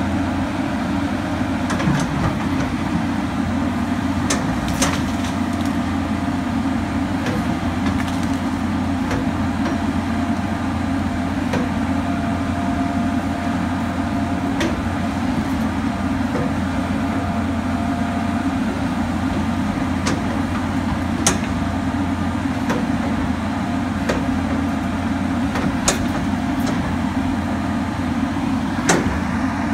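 John Deere tracked excavator's diesel engine running steadily as it works clearing brush and stumps, with a faint whine for several seconds midway and a few sharp cracks and knocks scattered through.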